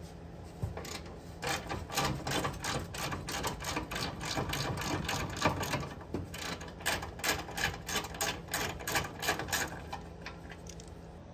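Hand ratchet with a 10 mm socket clicking in quick runs as a bolt is loosened, starting about a second in and stopping near the end.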